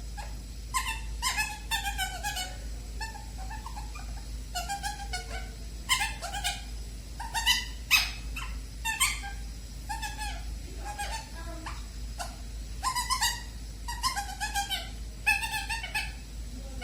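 Pet bird making repeated short, whimpering calls in runs of several quick notes, with brief pauses between the runs.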